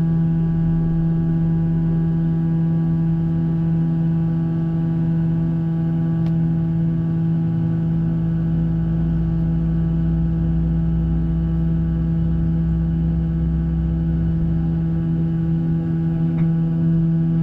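Steady droning hum inside the cabin of a Boeing 737-800 on the ground during pushback and engine start. Several fixed tones sound together, one of them pulsing about twice a second, and a low rumble swells from about eight to fifteen seconds in.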